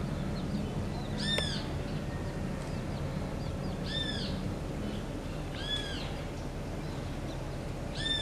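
Chicks peeping: four separate high calls, each rising then falling in pitch, spaced one and a half to three seconds apart.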